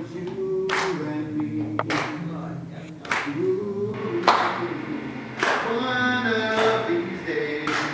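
A group of voices singing a gospel-style song in held, sliding notes, with hand claps on the beat roughly once a second.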